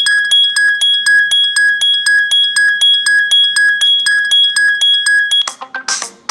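Casio G'zOne Commando smartphone playing a bell-like ringtone through its speaker: a bright two-tone ring pulsing about four times a second. About five and a half seconds in it cuts to a different, noisier ringtone of quick chirps.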